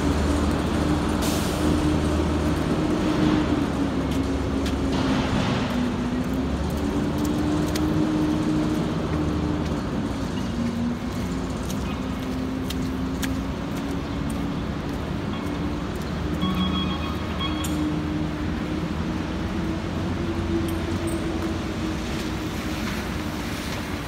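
Street traffic noise dominated by a steady engine hum whose pitch drifts slowly up and down, over a general street hiss. A short high tone sounds about two-thirds of the way through.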